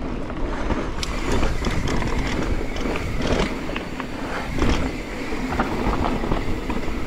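Mountain bike rolling downhill over dirt and exposed rock: steady tyre noise on the loose surface with frequent knocks and rattles from the bike over the rough ground.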